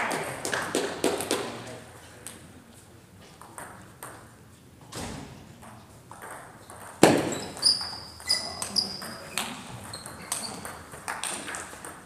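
Table tennis ball clicking off bats and the table in a rally, with the hits coming in quick succession from about seven seconds in. The loudest single hit comes at about seven seconds, and short high squeaks follow soon after.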